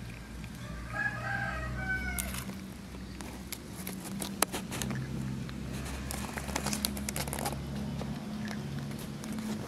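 A rooster crows once, a little after the start, lasting about a second and a half. Scattered light clicks and knocks follow over a steady low hum.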